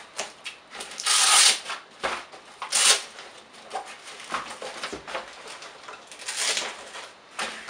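Velcro straps inside a padded rifle bag being ripped open by hand: a series of rasping tears. The longest and loudest comes about a second in, with shorter ones near three seconds and six and a half seconds, and softer fabric handling between them.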